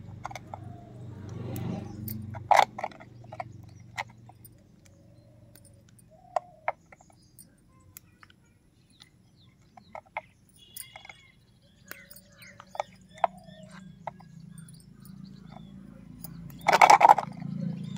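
Scattered soft clicks and rustles of soil being pressed down by hand in a thin plastic-bottle planter, with one louder, short crackling burst about a second before the end.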